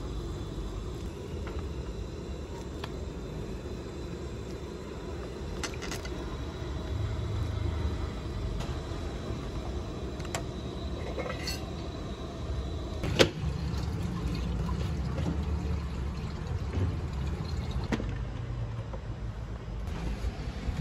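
Kitchen handling sounds over a steady low rumble: gourd cubes going into a pot of broth and a metal ladle stirring in an aluminium pot, with scattered light clicks and one sharp knock about thirteen seconds in.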